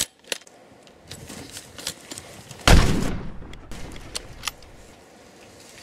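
A single rifle shot about two and a half seconds in, sharp and loud and fading over a second or so. It comes after a few light metallic clicks of the bolt-action rifle being handled.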